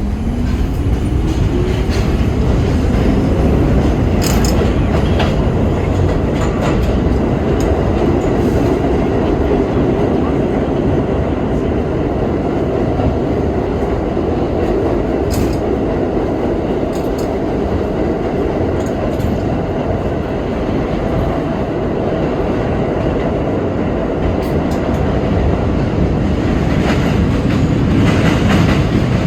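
R32 subway car under way, heard from inside: a motor whine rises in pitch over the first few seconds as the train gathers speed, then gives way to steady running noise. Wheels clack over the rail joints with occasional sharp clicks.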